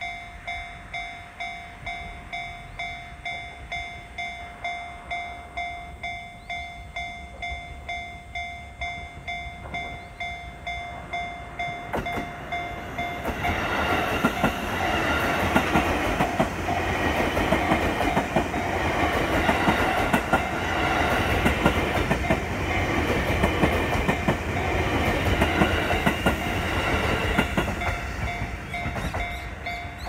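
Japanese railway level-crossing warning bell ringing in a steady, repeating ding, a little under two strikes a second. About thirteen seconds in, a train runs over the crossing with a loud rumble and wheel clatter that drowns the bell for some fifteen seconds, then fades while the bell keeps ringing.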